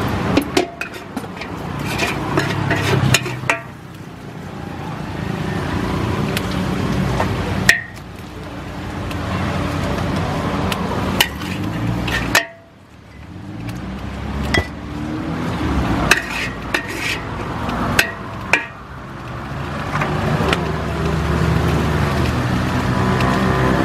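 Metal spatula scraping and clanking against a large steel wok as noodles and egg are stir-fried, with sharp knocks every few seconds, over the steady noise of road traffic.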